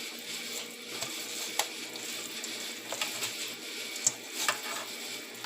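Bare hands squeezing and breaking apart wet, rinsed, partly cooked ground beef in a dish: a soft, wet, noisy rustle with a few sharp clicks.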